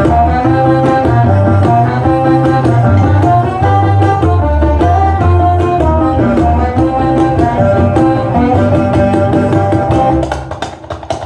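Music played through a portable Bluetooth speaker in a sound test: a track with heavy bass and a melody over hand-drum percussion. About ten seconds in, the bass and held notes drop out, leaving mainly the percussion.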